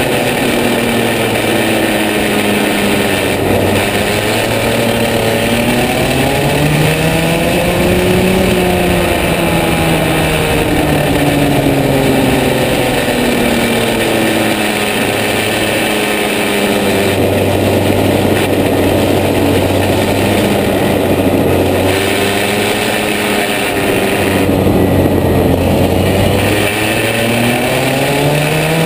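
Rotax 125 cc two-stroke kart engine at racing speed, its pitch climbing under acceleration and falling back each time the driver lifts for a corner, over and over.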